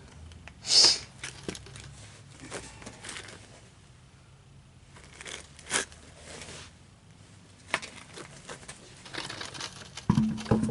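Scattered scrapes and knocks of a car wheel being handled and lifted onto the hub, with one sharp scrape about a second in and a few separate clicks and knocks after it.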